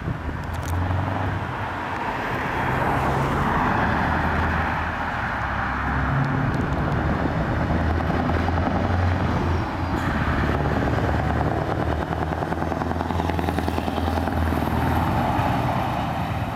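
Scania V8 truck tractors driving past at low speed, their engines running with a deep, steady note. The sound swells about three seconds in and again near the end as trucks come by.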